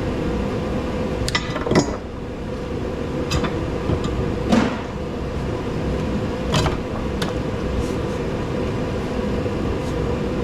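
Scattered clinks and knocks of scrap parts being handled and worked on, about seven in all, over a steady low hum.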